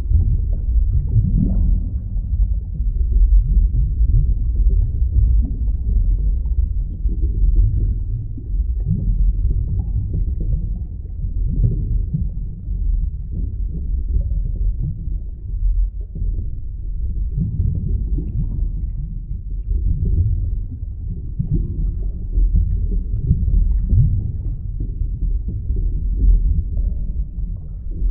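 Muffled underwater ambience: a continuous low rumble of water with short swells and gurgles every second or so.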